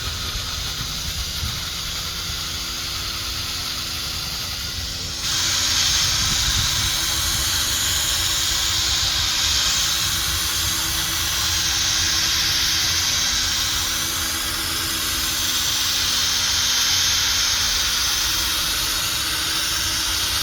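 Cordless drill spinning a sanding pad against a plastic headlight lens: a steady sanding hiss over the drill's motor hum. It gets louder about five seconds in.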